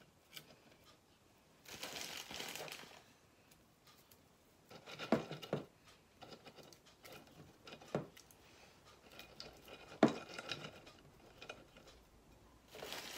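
Hyacinth bulbs being set by hand into a glass vase: a rustle, then a few sharp knocks and clinks against the glass, the loudest near the end.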